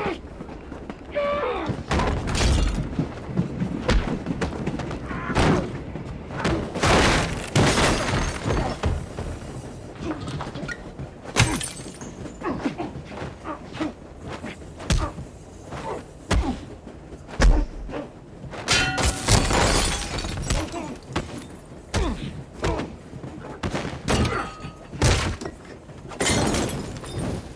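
Hand-to-hand fight sounds: repeated heavy thuds of blows and bodies slamming against wooden panelling, with glass shattering and grunts from the fighters.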